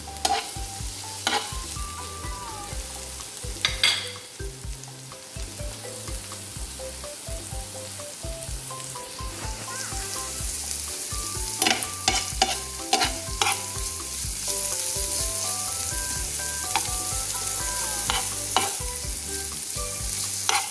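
Diced onion and green pepper sizzling steadily in oil in a frying pan, stirred with a metal spoon that scrapes and knocks against the pan now and then, most often about twelve to thirteen seconds in.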